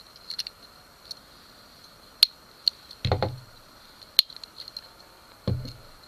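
Victorinox Swiss Army knives being handled and set down on a wooden table: scattered sharp metal clicks and two dull knocks, one about three seconds in and one near the end. A faint steady high whine runs underneath.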